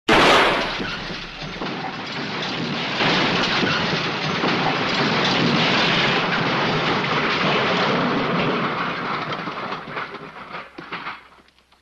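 Crash sound effect: a sudden heavy impact, then a long rumbling, rattling rush of tumbling debris that swells again about three seconds in, thins out, and ends in a few last clatters.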